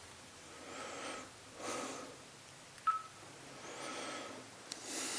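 A man breathing, four slow noisy breaths, with one short electronic beep about three seconds in, the kind a handheld digital voice recorder gives when it is switched on.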